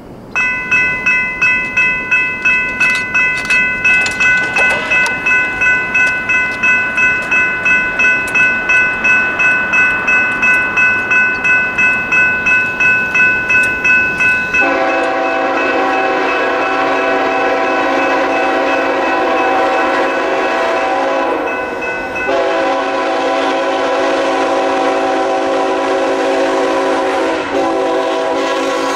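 Railroad crossing signals activating: General Signals Type 3 electronic crossing bells ring at about two strikes a second. About halfway through the bells stop and a diesel freight locomotive's horn takes over, a loud steady chord of several notes held in long blasts with a short break.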